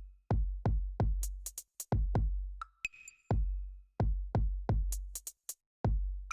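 Background electronic music with a steady drum-machine beat: deep kick drums, crisp hi-hat ticks and short pinging tones.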